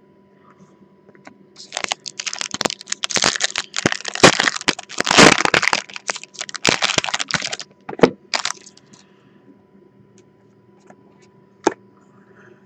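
Foil trading-card pack being torn open and crinkled by hand: a dense run of crackling from about two seconds in until nearly eight seconds, loudest in the middle, then a few separate crackles.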